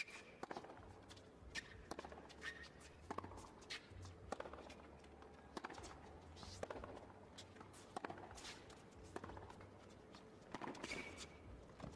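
Faint sounds of a tennis rally on a hard court: sharp knocks of racket strings hitting the ball and the ball bouncing, every second or so, mixed with players' footsteps.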